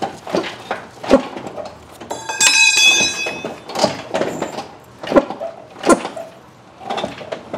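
Metal clunks and rattles as a Gen3 6.0 LS V8 engine hanging from an engine hoist chain is rocked back and forth by hand to break it loose from the transmission bellhousing, about a dozen uneven knocks. About two seconds in, a piece of metal rings out clearly for about a second and a half.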